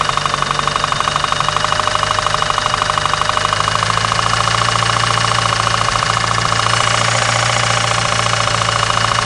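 Turbocharged 4G63 inline-four engine running at a steady speed with a fast, even metallic knocking. This is rod knock from a spun connecting rod bearing, with play between the rod and the crankshaft.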